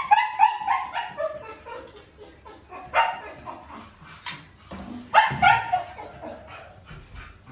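Dogs yipping and whining in runs of short, high-pitched yelps: a cluster at the start, another about three seconds in and a louder one about five seconds in. A sharp knock sounds about four seconds in.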